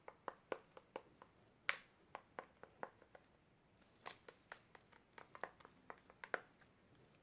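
Stirring a glue and shaving-foam slime mixture in a bowl: soft, irregular clicks and taps, a few a second.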